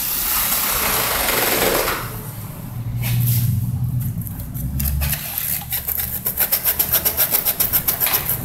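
Electric drill boring a small hole through a motorcycle's plastic tail section. After a rushing noise, the motor runs with a steady low hum. Over the last couple of seconds it turns to a rapid, even rasping pulse, about six a second.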